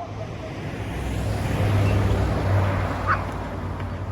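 A car passing by on the road: its tyre and engine noise swells to a peak about halfway and then fades away.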